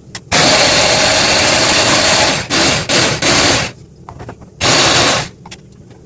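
Electric mixer grinder run in pulses: one run of about two seconds, two short bursts straight after, then one more short burst near the end, each starting and stopping abruptly.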